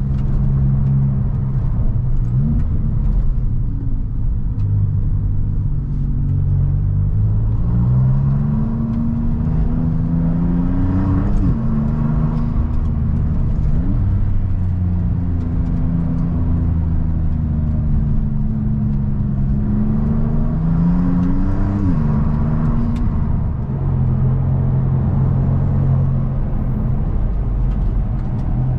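Maserati MC20 Cielo's Nettuno twin-turbo V6 heard from the driver's seat, driving through the gears. The engine note climbs under acceleration twice, a little past ten seconds in and again past twenty seconds, and each climb ends in a sharp drop in pitch at an upshift.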